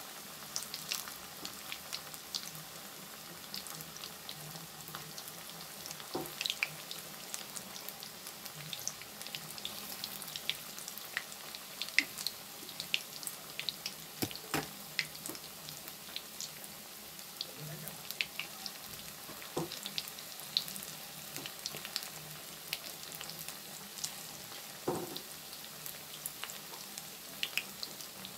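Fenugreek-leaf pakoras deep-frying in hot oil in a kadhai: a steady sizzle with scattered small crackles and a few louder pops.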